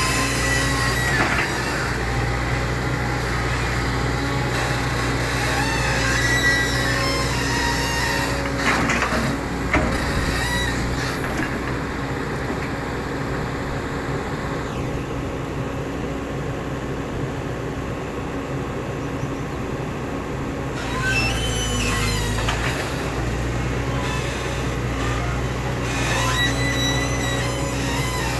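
Tracked JCB excavator working: its diesel engine runs steadily under load while the hydraulics whine and metal parts squeal as the boom and bucket move. The high squeals come and go, dropping away for several seconds in the middle before returning.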